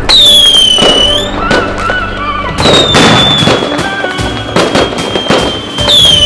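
Fireworks exploding and crackling in quick succession, with background music and a high, drawn-out whistle that dips in pitch at the start and then holds steady for several seconds.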